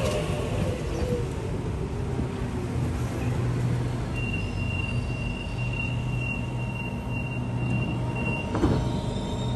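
Sydney Trains Waratah A-set double-deck electric train arriving and slowing alongside the platform, with a steady low running hum. A steady high squeal sets in about four seconds in and stops shortly before one sharp knock near the end.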